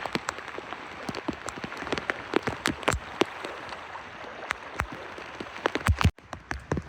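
Rain falling, with many sharp separate drop hits close to the microphone over a steady patter. The sound drops out briefly about six seconds in.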